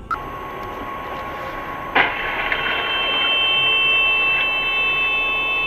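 A car collision: one sharp crash about two seconds in, heard through a dashcam inside a nearby car. A steady high whine runs under it, and steady high ringing tones follow the crash.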